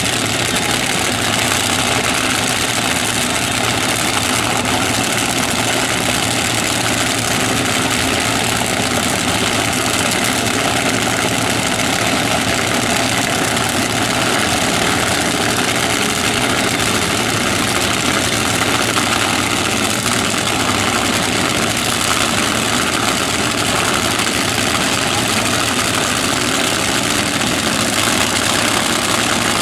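Supercharged, nitromethane-burning fuel altered dragster engines idling steadily on the track before a run.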